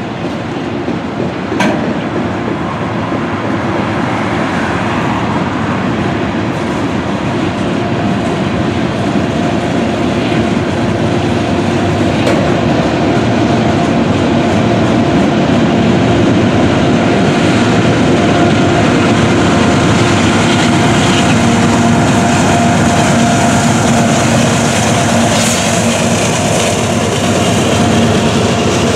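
Norfolk Southern mixed freight train's cars rolling by: a steady loud rumble and clatter of steel wheels on the rails, growing slightly louder over the stretch.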